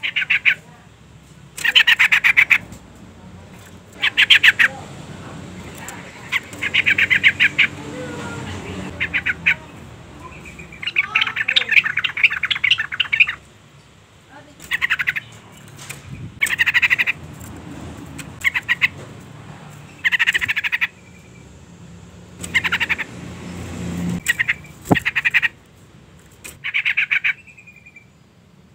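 Female yellow-vented bulbul (trucukan) giving its agitated call: about a dozen bursts of rapid chattering notes, each lasting up to about two seconds, with short pauses between them.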